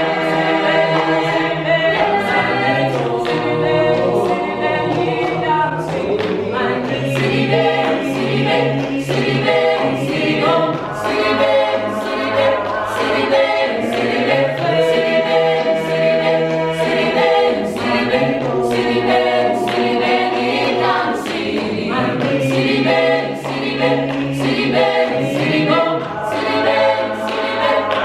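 A choir singing in harmony, with a steady beat running under the voices.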